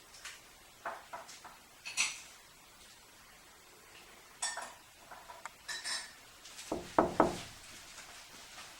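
Scattered light clinks of dishes and cutlery, then two sharp knocks on a window pane about seven seconds in.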